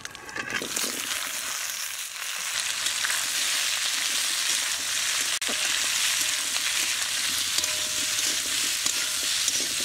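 Whole Indian jujubes (kul) dropped into hot mustard oil in an aluminium kadai, sizzling steadily as they are stirred with a metal spatula. The sizzle swells up within the first second as the fruit hits the oil.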